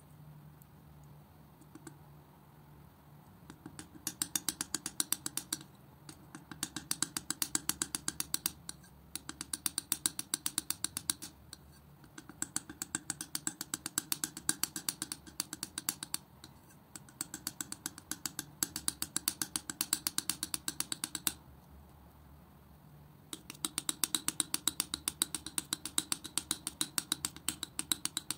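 Metal palette knife mixing and spreading thick acrylic paint on a hard surface: rapid runs of clicks, several a second, as the blade presses into and lifts off the paint. They come in bursts of a few seconds with short pauses between, the first starting about four seconds in.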